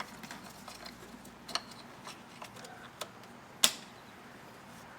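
Disconnected engine leads being pushed back onto their connectors by hand: a few light clicks and small knocks, then one sharp snap about three and a half seconds in as a connector seats.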